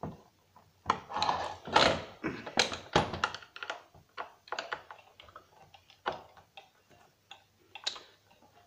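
Hand screwdriver working screws out of a turntable's wooden base, making irregular clicks, ticks and taps. A denser run of louder knocks comes from about one to three and a half seconds in.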